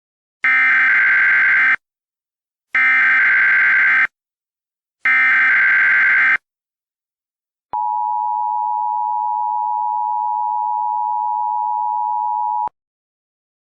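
Emergency Alert System signal: three identical bursts of SAME header data tones, each about a second and a quarter long, then the steady two-tone attention signal, held for about five seconds and cut off sharply. Together they mark the start of an emergency alert message.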